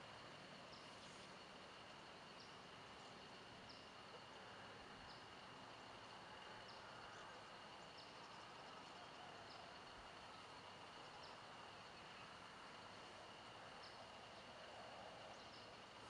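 Faint insect chorus: a steady high trill, with a short higher chirp repeating about once a second.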